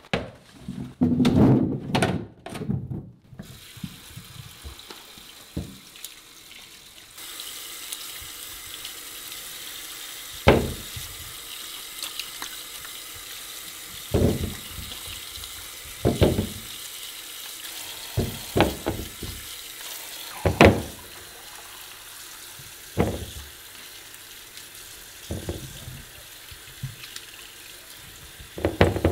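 Peeled potatoes tumbling and knocking into a stainless-steel sink, then a kitchen tap running steadily into the sink as the potatoes are rinsed by hand. Single knocks every few seconds as washed potatoes are set down on a tray.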